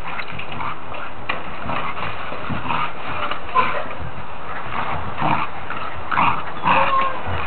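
Welsh Corgis playing, giving several short yips and whines over a steady background noise, the loudest near the end.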